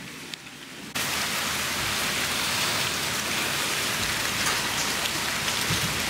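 Steady rain falling at night. For about a second it is heard faintly through a closed sliding glass door, then it turns suddenly much louder as the door opens onto the balcony.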